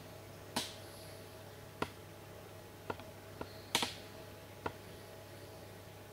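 Camcorder handling noise: about seven sharp clicks and knocks spread over four seconds, over a steady low hum from the camera.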